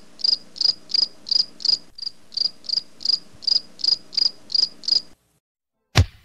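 Cricket-chirp sound effect: a single cricket chirping steadily, about three chirps a second, which stops about five seconds in. It is the stock gag for an awkward silence after a curt answer. A sharp bang comes near the end.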